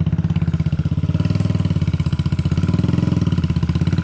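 Motorcycle engine running steadily with an even pulsing beat, the bike being ridden up a rocky off-road hill track.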